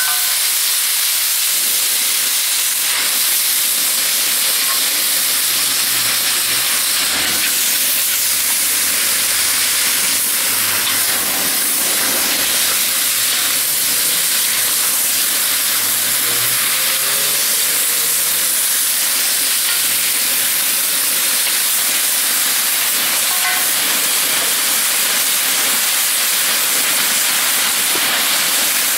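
Beef and vegetables sizzling steadily in a hot cast-iron wok as they are stir-fried with a wooden spatula.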